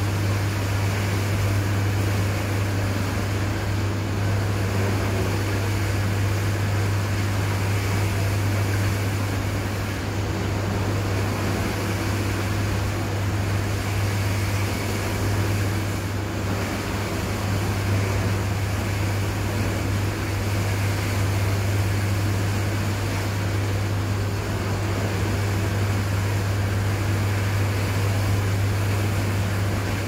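Hobart commercial dishwasher running a wash cycle: a steady low hum from the pump motor under an even rushing noise of water spraying inside the closed cabinet.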